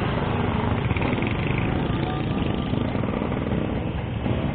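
Vintage two-stroke Vespa scooter engines running steadily as a group of scooters pulls away.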